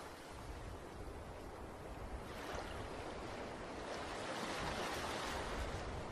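Ocean surf washing onto a beach: a steady rushing wash of waves that swells gently and ebbs.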